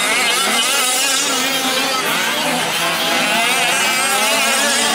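Several 1/5-scale gas RC trucks running their small two-stroke engines in a race, the overlapping engine notes rising and falling as the drivers work the throttle.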